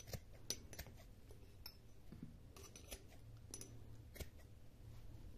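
Scissors snipping through cotton macramé cord: several faint, separate snips as the leftover fringe is trimmed.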